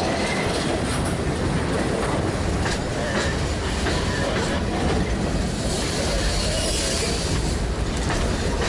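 Freight train cars (open hoppers and boxcars) rolling past at close range: a steady rumble of steel wheels on the rails, with faint high wheel squeals now and then.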